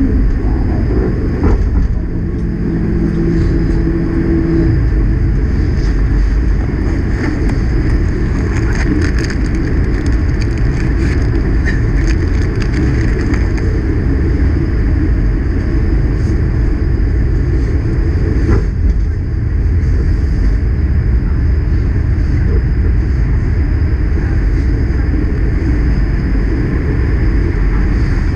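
Streetcar running along its rails, heard from on board: a steady, loud rumble of wheels and motors. A brief hum comes in about two seconds in, and there is a single knock a little past the middle.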